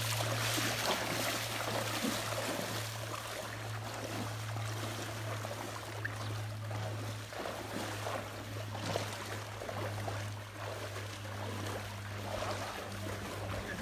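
Floodwater sloshing and splashing as people wade shin-deep through it, in irregular splashing steps, over a steady low hum.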